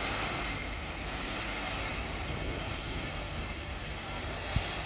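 Porsche Cayenne's engine running steadily while the SUV is stuck in deep soft sand, with one short sharp knock about four and a half seconds in.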